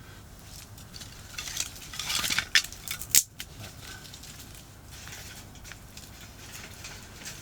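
Rustling, scraping and crackling handling noises with a few sharp clicks and clinks, busiest between about one and a half and three seconds in, over the faint steady rumble of distant highway traffic.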